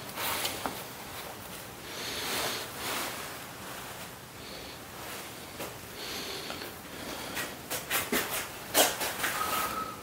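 Handling at a steel welding table: rustling from leather welding gloves and the worker's sleeve, then a run of sharp clicks and knocks in the last few seconds, the loudest near the end.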